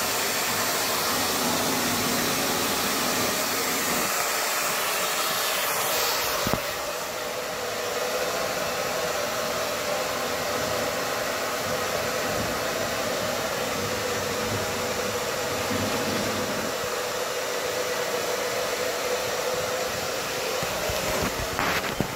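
Handheld hair dryer running steadily while drying a dog's wet coat: a continuous airflow hiss over a steady hum. About six and a half seconds in the sound shifts slightly and loses some of its highest hiss, then carries on evenly.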